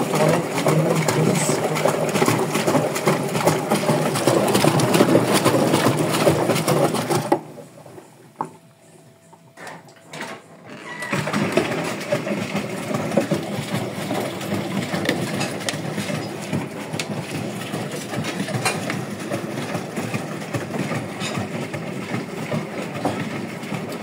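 Brandt 522 top-loading washing machine in its wash cycle: the motor runs and the drum turns wet laundry with water sloshing. About seven seconds in the drum stops and it goes quiet for about four seconds, then it turns again a little softer.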